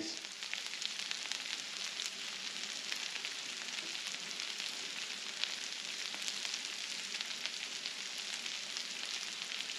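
Hash browns frying in butter on a Blackstone flat-top griddle: a steady sizzling hiss with fine crackles.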